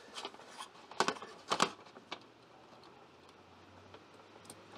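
A few sharp clicks and small knocks, clustered about a second in, as solar panel cable connectors are handled and plugged into Y connectors on the trailer roof; then only faint background.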